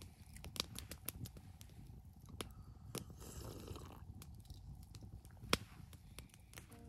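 Wood campfire crackling with irregular sharp pops, one louder pop about five and a half seconds in, over a low rumble.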